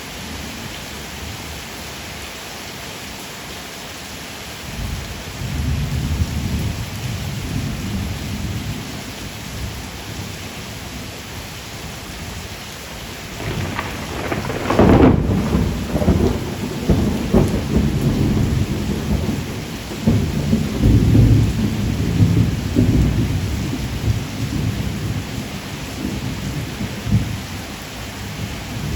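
Steady rain falling during a thunderstorm. Thunder starts rumbling a few seconds in, with one loud crack about halfway through, and the rumbling rolls on almost to the end.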